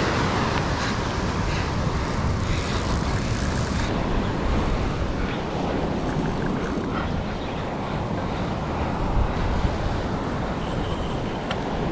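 Surf washing onto a sandy beach, a steady rush of noise, with wind buffeting the microphone.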